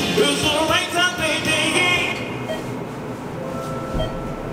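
A woman singing into a handheld microphone over backing music; the singing cuts off about two seconds in, leaving a quieter background with a few faint steady tones.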